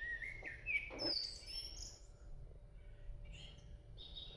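Background bird chirping: a series of short, high chirps and trills, faint.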